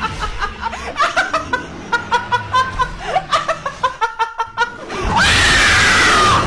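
Rapid, rhythmic laughter, then from about five seconds in a loud, sustained scream over a hiss of noise, the loudest part of the clip.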